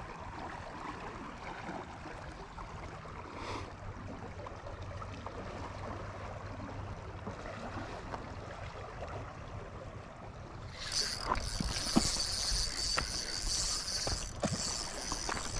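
Steady outdoor background noise, then from about two-thirds through a louder scratchy rustling with a few sharp knocks close to the microphone: an arm and sleeve brushing past the camera as the rod and gear are handled.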